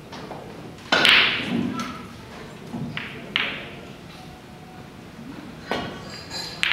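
A few separate sharp knocks and clicks in a snooker hall, the loudest about a second in with a short ringing tail; near the end, a cue tip strikes the cue ball.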